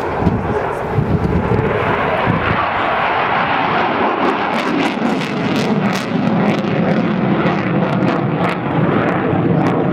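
Eurofighter Typhoon's twin EJ200 turbofan jet engines at high power with afterburner lit, a loud continuous rush of jet noise as it climbs overhead. Sharp crackles run through it from about four seconds in.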